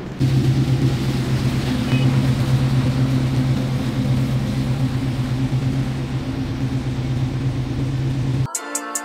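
Corvette V8 engines running steadily at low revs with a deep, even drone as two Corvettes line up side by side. About eight and a half seconds in, the engine sound cuts off abruptly and music starts.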